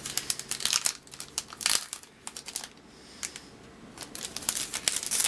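Foil trading-card pack wrapper crinkling as it is handled, in crackly bursts, with a quieter stretch of about two seconds in the middle.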